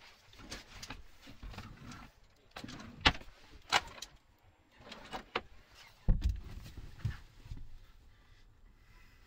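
Someone rummaging through cupboards and drawers: scattered knocks and clicks of doors, drawers and handled objects, with rustling between them. The sharpest clacks come about three and four seconds in, and a heavier thump about six seconds in.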